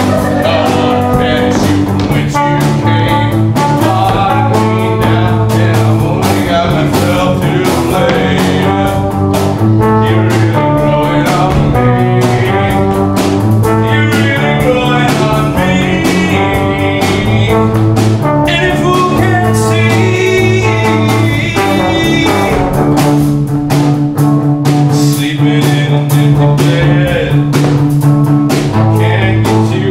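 Live band playing a rock song with singing over it, guitar and a horn in the mix; the music keeps going without a break.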